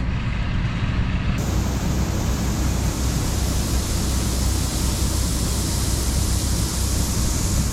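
John Deere 4400 diesel combine running steadily during harvest: a constant low engine drone under a broad rushing noise. About a second in, the rushing turns brighter and hissier.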